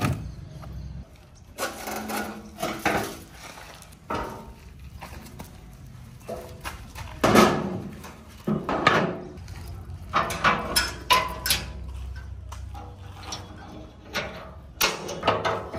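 Steel tractor-trolley tailgate being lifted shut and latched by hand: a series of sharp metal clanks and knocks at irregular intervals.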